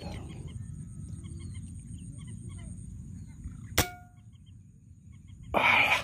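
A single sharp air rifle shot about four seconds in, with a brief ringing tone. Faint bird calls and a low field rumble run underneath, and a louder noisy burst comes near the end.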